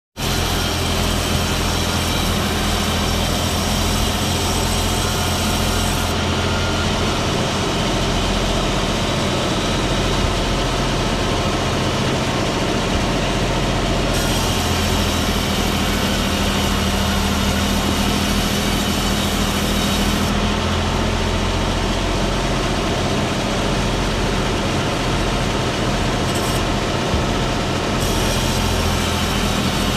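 Engine-powered wood saw running steadily, with a low, even engine drone under a noisy hiss of sawing. The high hiss drops away and returns several times.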